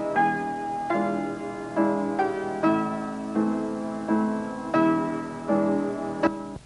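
Solo piano playing the film's theme tune, a slow melody with a new note or chord struck about every three-quarters of a second, each ringing and fading. The music cuts off abruptly at the very end.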